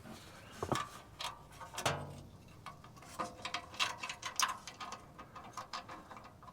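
Ratchet wrench clicking in short irregular runs, with light metallic clinks, as hardware is fitted onto an exhaust pipe clamp.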